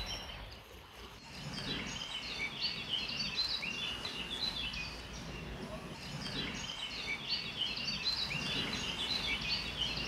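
A chorus of songbirds singing, many short overlapping chirps and trills, starting about a second and a half in and going on steadily.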